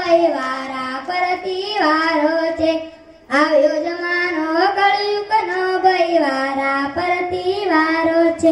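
A child singing a Gujarati qawwali over a PA, in long held notes with ornamented bends, with a short break about three seconds in.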